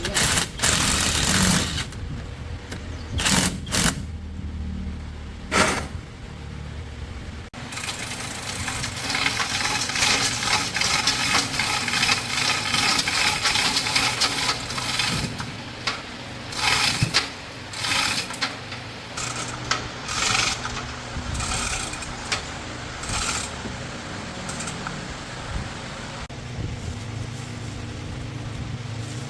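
Repair work on heavy machinery: metal parts and tools clattering and rattling in short bursts over an engine running steadily in the background.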